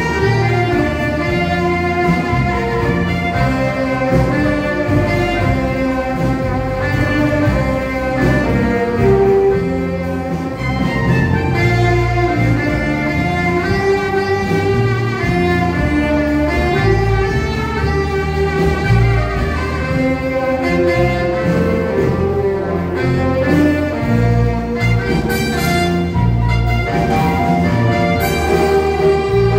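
Instrumental music with a steady beat: held melody notes over a strong, pulsing bass line.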